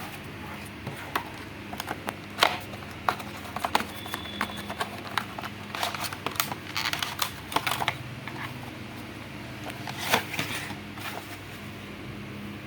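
Hands handling small computer hardware: scattered clicks, taps and short rustles, busiest from about two to eight seconds in and again around ten seconds, over a steady low hum.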